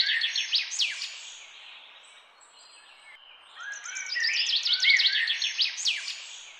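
A songbird singing: two phrases of quick, falling chirps, one at the start and one again about four seconds in, over faint outdoor background hiss.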